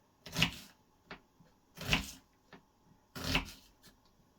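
Kitchen knife slicing down through an onion onto a chopping board: three slow, even cuts about a second and a half apart, with a couple of faint ticks between them.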